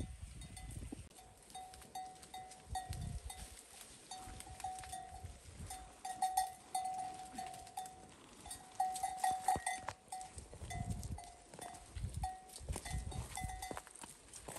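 A bell on a grazing cow clanking in short, irregular strokes, all on one pitch, as the animal moves and feeds. Low rumbles of wind or handling on the microphone come and go.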